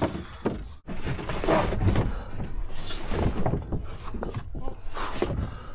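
Eddyline Skylark kayak's hull scraping and knocking against rock in uneven bursts as it is dragged up a steep rock face, with the paddler's strained breathing.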